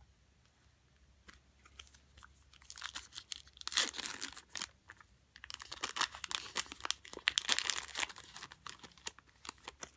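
A foil trading-card pack wrapper being torn open and crinkled, in two stretches of crackly rustling with sharp ticks that start a few seconds in.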